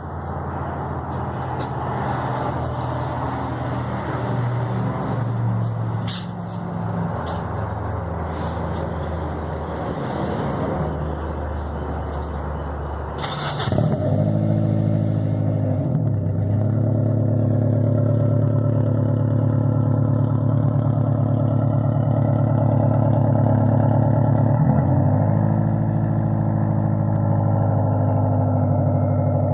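1994 Acura Integra's four-cylinder engine through a DPT aftermarket exhaust with 4-1 headers and a high-flow cat. The exhaust note shifts in pitch through the first half, then grows louder and holds steady from about halfway, dipping and climbing back in pitch twice.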